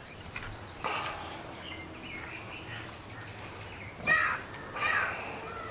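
A crow cawing several times, with the two loudest caws about four and five seconds in.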